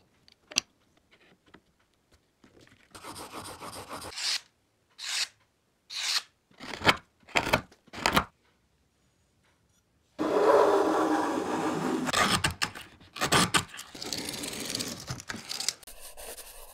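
A woodworking hand tool scraping and rubbing on wood. A few light clicks come first, then a series of short scraping strokes, a pause, and from about ten seconds in a long stretch of continuous scraping.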